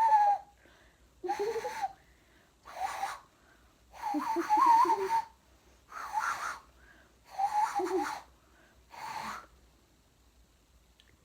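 Hand whistle blown into cupped palms in imitation of a cuckoo: six breathy hooting notes about a second apart, each a pitched tone under a lot of rushing air, then they stop.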